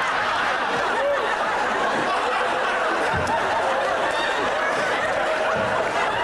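Studio audience laughing, a steady, sustained wave of many voices.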